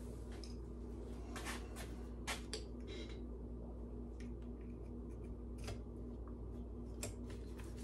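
Faint, scattered clicks and scrapes of hone stones and guides being fitted by hand into a cylinder hone, over a steady low hum.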